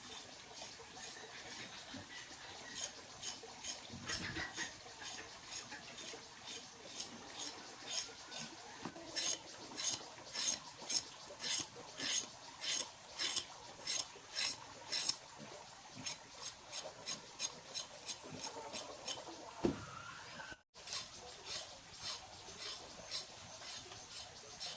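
A steady rhythmic run of light clicking, scraping strokes, about two a second, like a tool working repeatedly on a hard surface.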